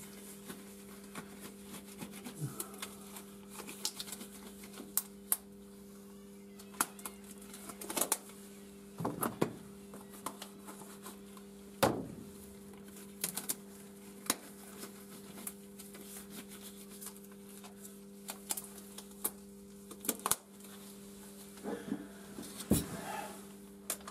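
Thin latex gloves being pulled onto the hands, with irregular rubbery rustles and short snaps, over a steady low electrical hum.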